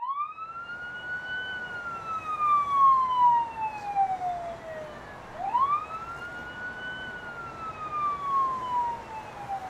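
Emergency vehicle siren on a slow wail. Each cycle climbs quickly, then falls slowly over about five seconds, and the second cycle begins a little past the middle.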